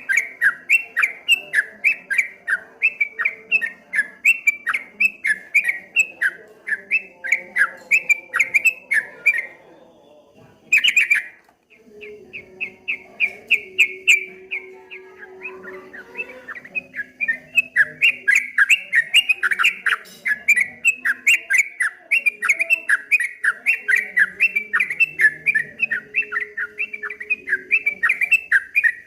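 Yellow-vented bulbul (trucukan) singing a rapid rolling 'ropel' song of quick repeated chirps, several a second. The song breaks off about ten seconds in, with one short loud call, then resumes.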